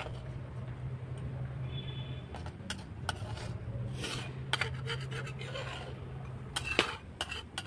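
A spoon or ladle scraping and clicking against the pot of chicken curry, a series of short scrapes and knocks over a steady low hum.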